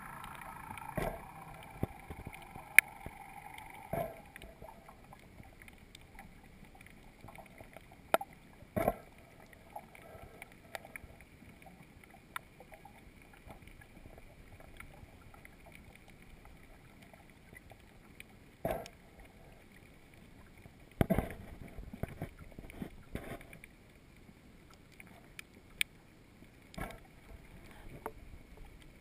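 Underwater sound picked up by a GoPro in its waterproof housing: a low, steady hiss broken by scattered short knocks and clicks, with a cluster of them about two-thirds of the way through.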